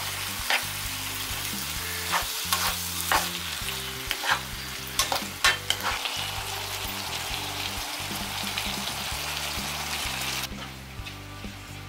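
Diced radish kimchi, onion and thin pork belly sizzling in a frying pan while a wooden spatula stirs and scrapes through it, with sharp scrapes and knocks against the pan every second or so. The sizzling drops away abruptly near the end.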